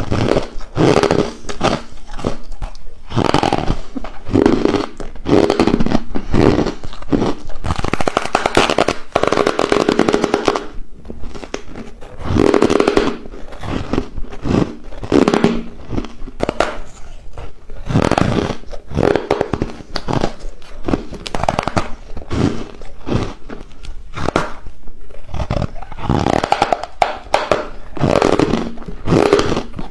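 Close-up chewing and crunching of ice chunks coated in matcha powder, a dense run of crackling crunches picked up by a clip-on microphone.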